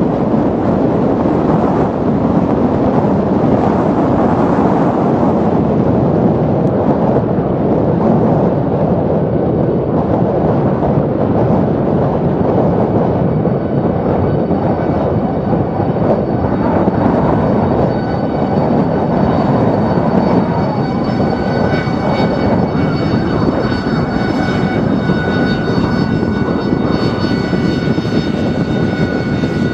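AV-8B Harrier II jump jet's Pegasus turbofan running as the jet taxis, a loud steady rushing roar. About halfway through, a high steady whine rises over it and grows stronger near the end as the jet draws close.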